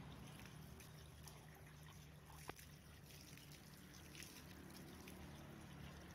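Faint water trickling and splashing as it is poured over a car's open fuel filler door and cap, with one sharp click about two and a half seconds in.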